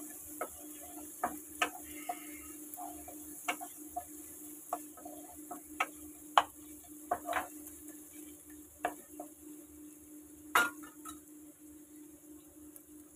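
A spatula stirring and scraping prawns and fried onion-garlic-ginger paste in a non-stick kadai, with irregular knocks against the pan, the loudest about ten and a half seconds in. Oil sizzles faintly underneath.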